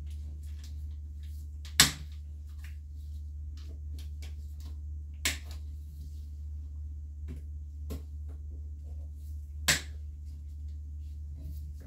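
Woody Antler Reishi fruit bodies being cut from the grow block, giving three sharp snaps about two, five and ten seconds in, with a few fainter clicks between, over a steady low hum.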